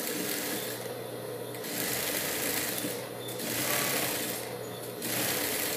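Industrial straight-stitch sewing machine topstitching a seam, running in about four short runs with brief pauses between them, over a steady motor hum.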